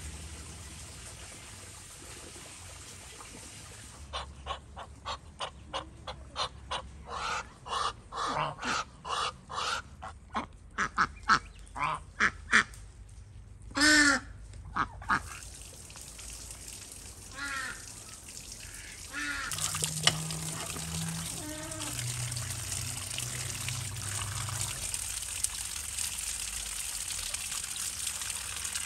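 Waterfowl calling: a fast run of short calls, two or three a second, then a single longer call and a few scattered calls. After that, from about twenty seconds in, a steady hiss of trickling water.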